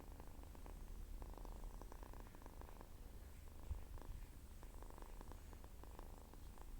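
Domestic cat purring continuously: a low, creaky purr whose rasp swells and fades in cycles.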